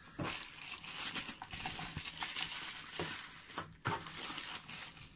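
Clear plastic packaging bag crinkling and rustling in irregular crackles as hands handle it.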